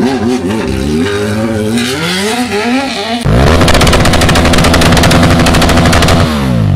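Motorcycle engine revving up and down as the bike rides. About three seconds in, the sound jumps to a louder engine held at high revs with rapid, rattling pops, and it drops in pitch near the end.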